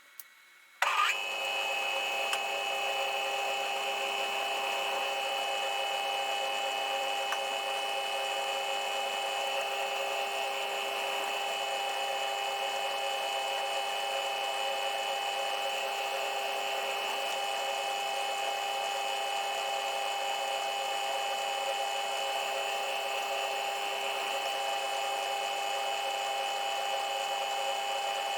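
Milling machine motor and spindle starting up about a second in, then running at a steady, even speed with a constant whine.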